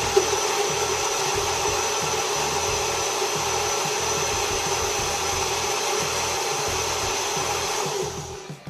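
Electric blender running steadily, puréeing boiled ají amarillo chili peppers with a little water into a paste; it switches off near the end.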